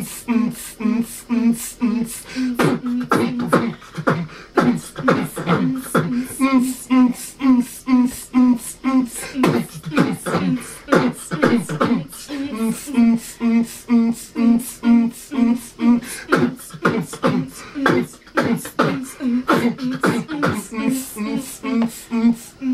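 Beatboxing: a young man imitating a drum beat with his mouth behind cupped hands, a steady rhythm of sharp clicks and snare-like hits with a low hummed note pulsing underneath.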